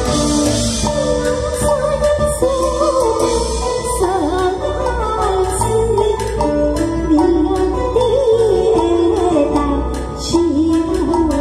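Taiwanese opera (gezaixi) stage music: plucked-string and band accompaniment with a steady low beat, and a sliding, wavering melody line above it from about two seconds in, typical of a sung opera tune.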